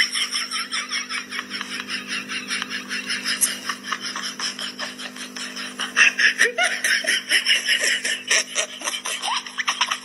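Giggling laughter: a rapid run of short "ha-ha" pulses, over a steady low hum.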